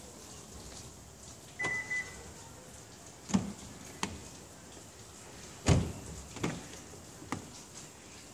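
A single short electronic beep from the car's aftermarket X-LINK alarm, then a string of sharp mechanical clunks and thumps from the car's doors and lock mechanisms. The loudest, a deep thump about halfway through, is like a door being shut.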